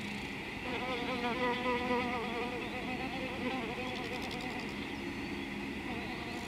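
A flying insect buzzing, its pitch wavering up and down, over a steady high hiss.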